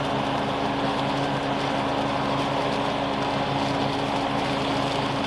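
Toro TimeMaster 30-inch push mower's engine running steadily under load with the blades engaged, cutting grass and leaves.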